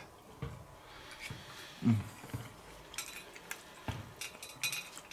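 A person eating: a fork clicking and scraping lightly on a plate, with a few low mouth sounds, the loudest a short low "mm" about two seconds in.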